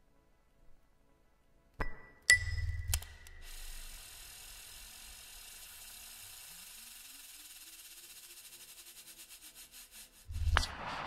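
Electronic sounds played by a performer's gesture-sensing glove: two sharp clicks with a brief high ping, then a rattling, ratchet-like clicking texture whose pulses slow and spread out, with a faint tone rising under it, and a louder noisy burst near the end.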